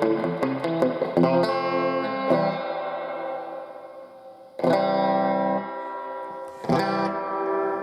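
Electric guitar played through a Fender tube combo amp: a quick run of picked single notes, then three chords struck and left to ring out.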